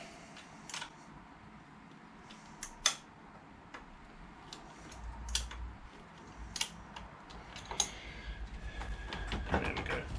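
Sharp metallic clicks and taps of a 10mm hand tool loosening a motorcycle clip-on pinch bolt, scattered at first and coming closer together near the end.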